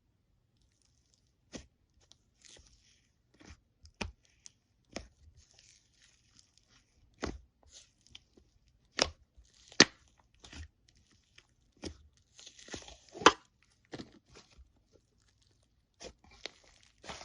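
Slime being squeezed and worked by hand, giving irregular sharp pops and clicks with short bursts of crackling in between.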